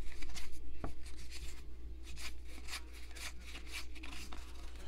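2020 Topps Heritage baseball cards sliding and rubbing against one another as a stack is flipped through by hand: a string of short, irregular swishes, with a sharper tick about a second in.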